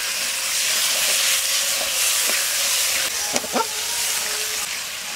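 Onion-tomato masala with a little water just added, sizzling in hot mustard oil in a metal kadai while a metal spatula stirs it. A couple of sharp scrapes of the spatula against the pan come about three and a half seconds in.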